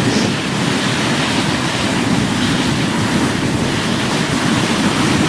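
Steady rushing noise of a moving dog sled: runners sliding over glacier snow, with wind buffeting the microphone.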